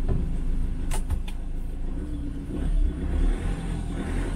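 Vehicle cabin noise while driving: a steady low engine and road rumble that grows louder about two and a half seconds in, with a few sharp clicks about a second in.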